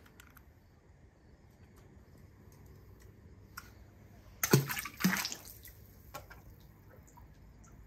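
A small toy car plopping into a swimming pool: two short splashes about half a second apart, a little past the middle.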